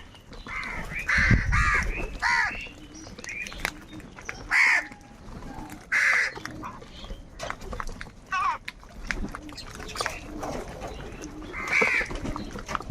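Several crows cawing in quick, overlapping calls, with a handful of louder caws standing out, as the birds squabble over food.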